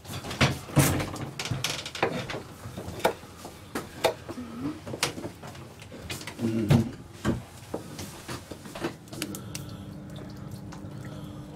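Irregular sharp knocks and clatter of kitchen work, including a knife chopping onion on a wooden cutting board. About nine seconds in, a steady low hum sets in.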